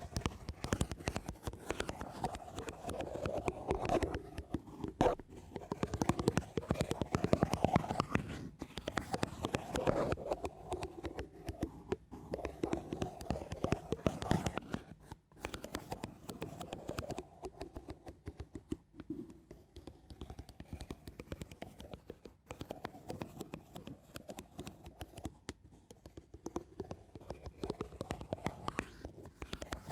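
Soft, slow ASMR scratching on a surface close to the microphone: a dense run of fine crackling strokes, louder in the first half and quieter after about halfway.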